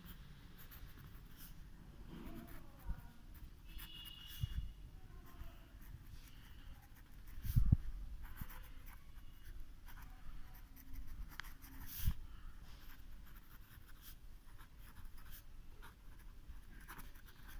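Needle-tip gel pen writing on ruled notebook paper: faint, irregular scratching strokes from a tip with some feedback. A few low knocks come through, the loudest a little before halfway.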